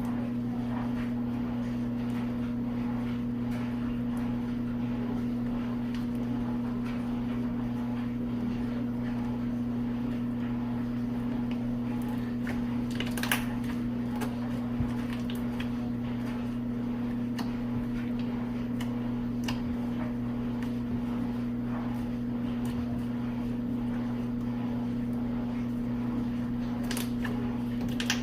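Steady low mechanical hum with a few short clicks scattered through it.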